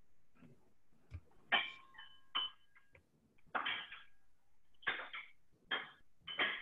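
Faint, irregular clicks and taps, about six over several seconds, coming through a video call's audio.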